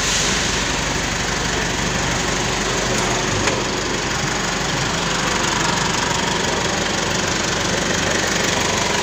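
Isuzu D-Max 2.5-litre diesel engine running steadily at idle.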